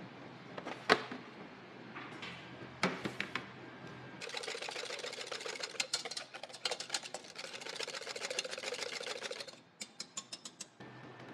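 A wire whisk beating egg in a small stainless steel pot: fast, rattling clicks of the wires against the metal for about five seconds, then a handful of separate sharp taps near the end. A few loud knocks come earlier, the loudest about a second in.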